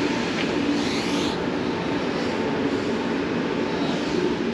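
A steady mechanical drone with a faint hum running through it and no distinct events.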